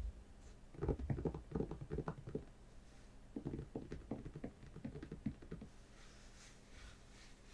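Fingertips tapping quickly on a hard object in two bursts of rapid clicks, followed by a soft rustle near the end.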